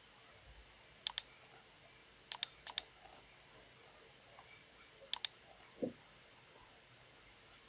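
Computer mouse clicking in a quiet room: short, sharp clicks, mostly in quick pairs, about a second in, around two and a half seconds in, and about five seconds in.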